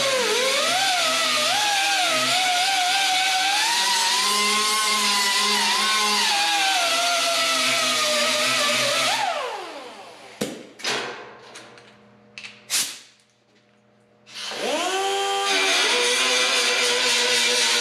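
Handheld electric grinder grinding the sheet-steel grille of a Farmall M, its whine sagging and recovering as it bites into the metal. About nine seconds in it is switched off and winds down, a few sharp knocks follow, and some five seconds later it spins back up and grinds again.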